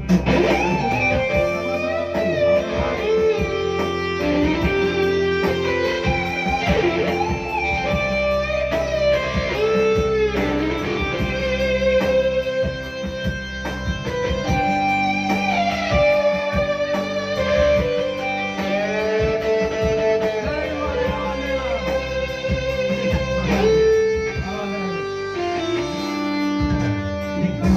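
Instrumental intro of a Batak pop song: an electric guitar plays a bending lead melody over bass and a steady beat.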